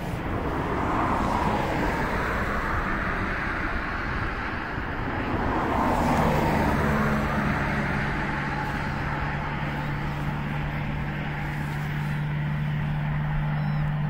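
Road traffic: vehicles driving past, one going by about a second in and another about six seconds in, over a continuous background rumble. A steady low hum sets in about six seconds in and holds.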